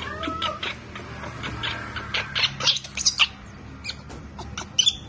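A baby monkey squeaking: many short, high-pitched squeaks in quick succession over a low, steady hum.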